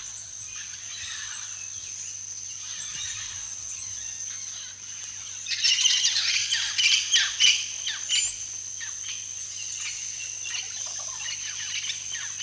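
Tropical forest birds calling: harsh squawks and chattering, densest and loudest for a couple of seconds from about five and a half seconds in, with scattered calls around it. A steady high-pitched tone runs underneath.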